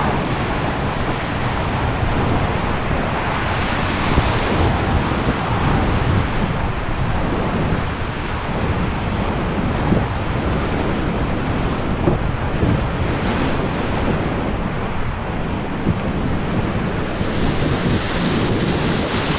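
Whitewater rapid rushing loudly and steadily around an inflatable raft, with a few sharp splashes as waves break over it.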